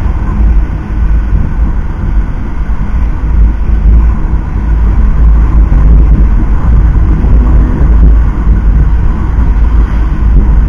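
Steady wind buffeting on an action camera's microphone while riding a Honda Click 150 scooter, with the scooter's engine and road noise underneath.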